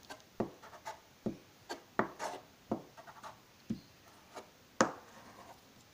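Hands pressing and smoothing a freshly glued sheet of paper flat on a table: a string of short, irregular rubbing strokes of palm and fingers on paper, the strongest about two seconds in and just before the five-second mark.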